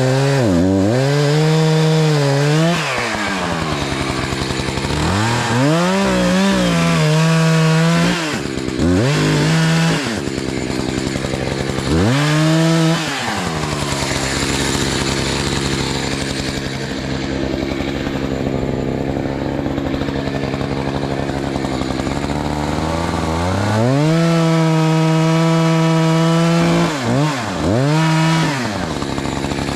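Two-stroke chainsaw cutting into a tree trunk: the engine drops toward idle and revs back up several times, with a long steady cut under load through the middle and another full-throttle run near the end.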